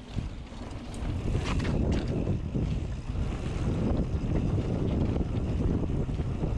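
Wind buffeting the microphone over the rumble and rattle of a mountain bike rolling fast down a dirt trail, with a few sharp clicks around two seconds in.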